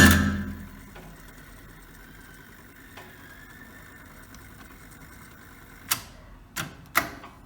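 Music playback cuts off, leaving faint steady hiss, then near the end three sharp clicks a fraction of a second apart from the Tascam 122 cassette deck's controls being operated.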